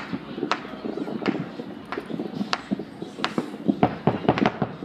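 Fireworks going off in sharp, irregular bangs and crackles that come faster in a cluster near the end, over the murmur of a crowd.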